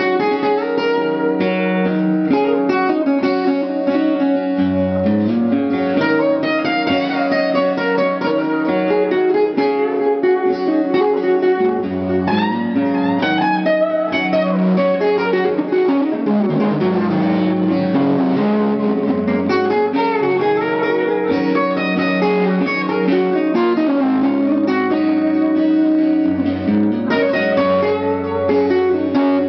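Two acoustic guitars strumming and picking a steady live accompaniment, with a harmonica playing long held, bending notes over them.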